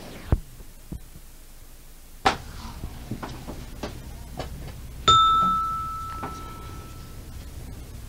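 Handling noise from a microphone being swapped and plugged in: the background hiss cuts out, then scattered knocks and clicks, and about five seconds in a single clear ding that rings out and fades over about two seconds.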